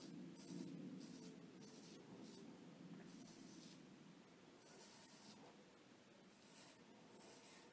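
Cichy Custom Knives 15/16 straight razor scraping through lathered stubble in a series of short, faint, irregular strokes.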